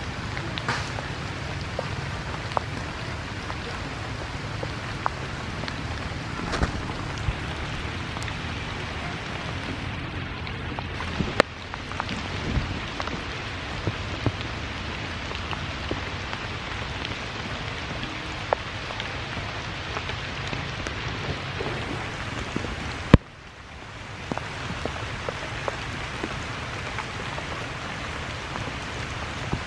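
Steady rain falling on forest leaves, an even hiss dotted with single louder drops and taps. The sound falls away abruptly about three-quarters of the way through, then swells back.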